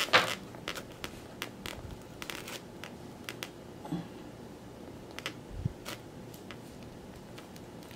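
Faint handling of a styrofoam clamshell takeout box and its paper liner: scattered light clicks and rustles as it is held and tilted, with one soft low bump a little past halfway.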